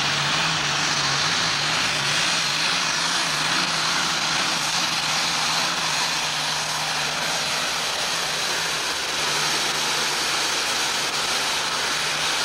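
John Deere farm tractor's diesel engine under heavy load dragging a pulling sled, held at one steady pitch.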